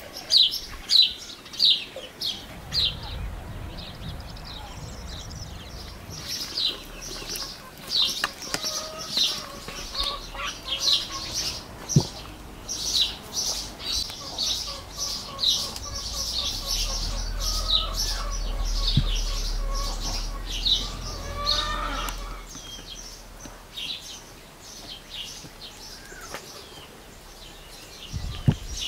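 A small songbird chirping over and over, short high downward-sweeping chirps at about two a second with brief pauses.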